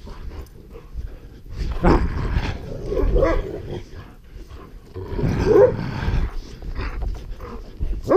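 Dogs growling as they play-fight, in several short bouts, the longest about five to six seconds in.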